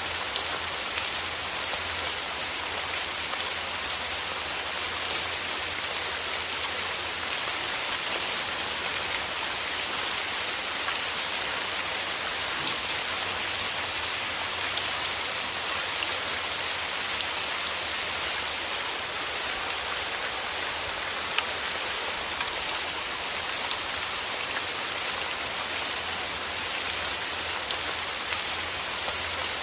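Steady rain falling on surfaces, an even hiss with many small drop patters throughout.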